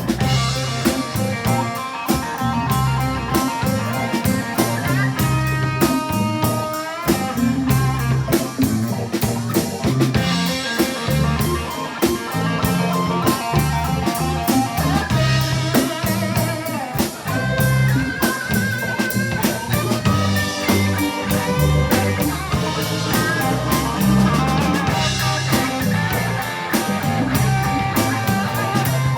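Blues band playing an instrumental passage: an electric guitar leads with bent notes over bass and a drum kit.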